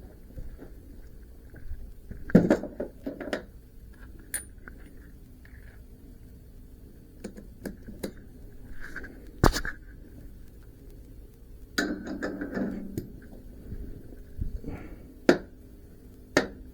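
Scattered knocks, clinks and scrapes of objects being handled, with a louder burst of clatter about two seconds in, a sharp knock near the middle, and more clatter past two-thirds of the way.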